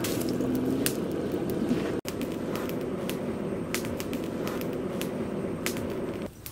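Charcoal forge fire burning with a steady low rush, with sharp crackles and clinks as a metal shovel stirs and scrapes through the coals.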